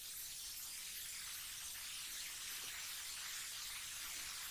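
Faint, steady hiss of recording background noise, with no other sound.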